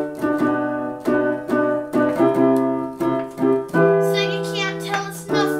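Digital piano keyboard played with both hands: short repeated chords at about three a second, then a chord held for about a second and a half, and a fresh chord struck near the end.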